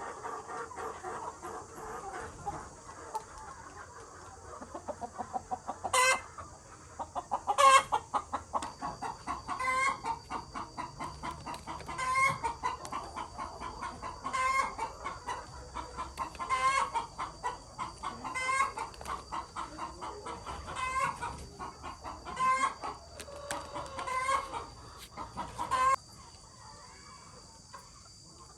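Chickens clucking rapidly, with a loud call repeated about every two seconds from about six seconds in. It all stops abruptly about two seconds before the end.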